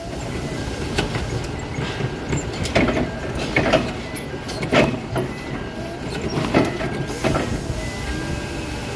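Forklift running, a steady low rumble, with several sharp knocks and clunks through the middle as the mast and forks move the load.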